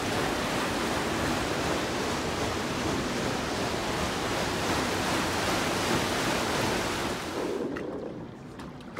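Water rushing steadily along an amusement-park boat ride's concrete channel, dropping away sharply near the end.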